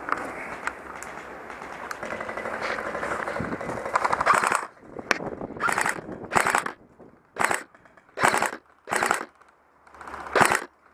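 Airsoft rifle firing on full auto: about four seconds of sustained rapid fire, then about eight short bursts, each under half a second, with pauses between them.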